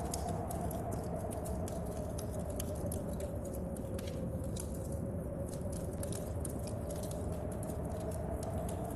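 Wood fire crackling in a stove with sharp, irregular pops, over a steady low rumble of storm wind and rain.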